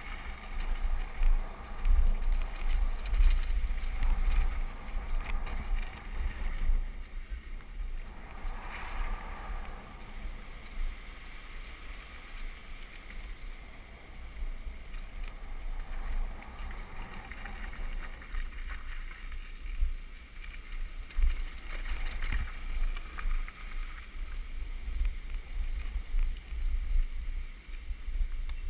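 Wind buffeting an action camera's microphone on a fast-moving downhill mountain bike, over the rumble and rattle of its tyres rolling on a loose dirt and gravel trail. The sound is loudest over roughly the first six seconds.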